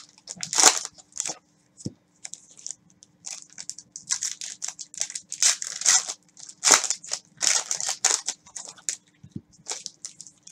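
Trading-card packs and cards being handled by hand: wrappers crinkling and tearing and cards sliding against each other, in short irregular rustles.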